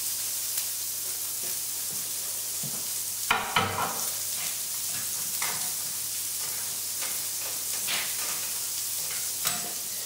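Chopped onion sizzling steadily in hot olive oil in a frying pan as it starts to soften. A brief knock of a utensil about three and a half seconds in.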